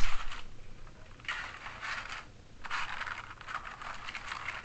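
Small hard plastic toy parts being handled, scraped and rattled in several short bursts, with a knock right at the start.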